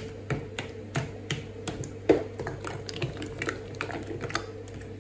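A spoon stirring thick sour cream in a plastic bowl: quick, irregular clicks and taps of the spoon against the bowl, several a second, over a faint steady hum.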